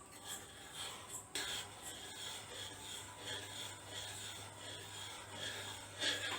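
Whole nutmeg being grated: a rasping scrape repeated about two to three times a second, starting about a second in.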